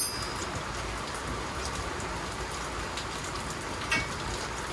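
Steady rain, with a sharp metallic clink at the start and another about four seconds in from a spanner and nuts being handled as nuts are threaded onto leaf-spring U-bolts.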